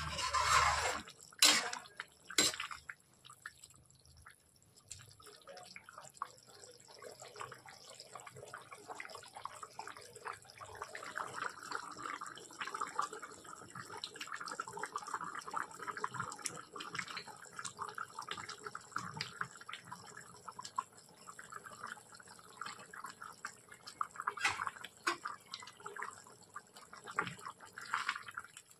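Chicken curry bubbling and popping as it simmers in a steel kadai, a dense crackle of small bursts. A metal ladle clicks sharply against the pan a few times in the first seconds.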